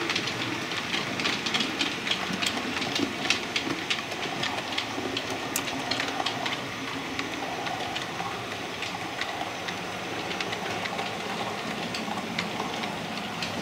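Model railway locomotive, an OO-gauge LNER C1 Atlantic pulling a coach, running along the track. It makes a steady running noise, with frequent sharp clicks as the wheels pass over rail joints and pointwork.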